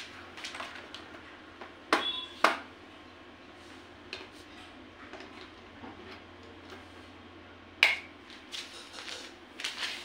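Sharp plastic clicks and knocks as a fan heater's plug is handled, pushed into a wall socket and the socket switch flicked. The loudest clicks come about two seconds in and again near eight seconds, with smaller ones just before the end.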